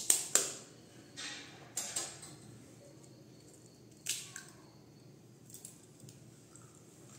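A spoon tapping a hen's egg to crack its shell: two sharp clicks right at the start, then scattered softer clicks as the shell is broken open and pulled apart.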